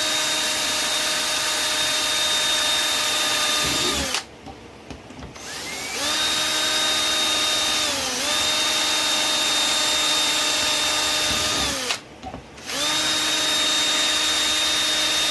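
Electric drill running under light pressure, boring rivet holes through UTV body plastic. The motor gives a steady whine that stops about four seconds in, winds back up, dips briefly, stops again near the twelve-second mark and starts once more.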